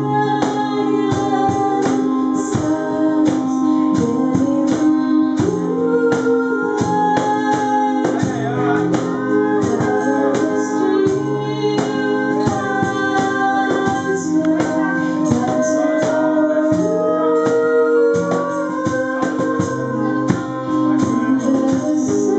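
Live band music: sustained organ-like chords under a steady percussion beat, with a melody line moving on top.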